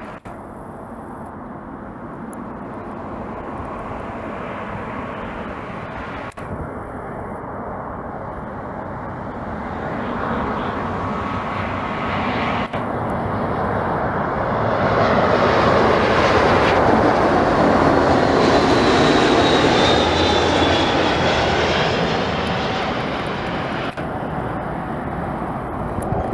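Jet airliner's engines passing close by: a steady roar that builds slowly to its loudest a little past halfway, with a high whine that slides down in pitch at the peak, then eases off slightly.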